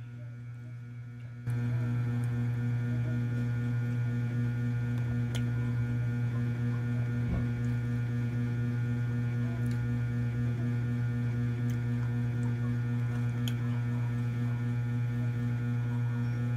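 Steady electrical hum that jumps louder about a second and a half in and then holds level, with a few faint clicks over it.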